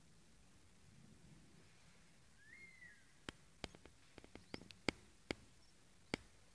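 A short whistled bird call, then an irregular run of a dozen or so sharp clicks and snaps over about three seconds, against near-silent background.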